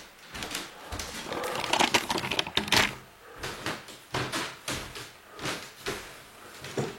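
Household items being handled and moved, with irregular rustling, clicks and knocks: a dense run over the first three seconds, then separate bursts about every half second to second.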